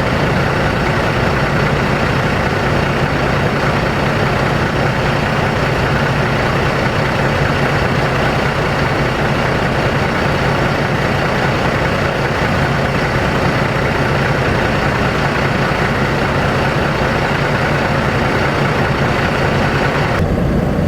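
Steady engine idle with a constant low hum and an even rush of noise. The noise cuts off suddenly near the end.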